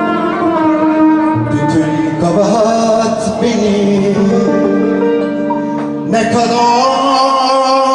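Live Turkish art song: a man sings into a microphone over a small instrumental ensemble with plucked strings, in a lively tempo.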